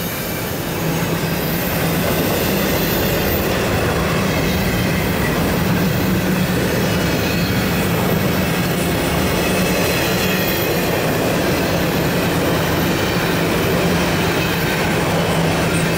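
Empty intermodal well cars of a freight train rolling past close by: the steady running noise of steel wheels on the rails, with a low even tone beneath it. It grows a little louder about a second in, then holds steady.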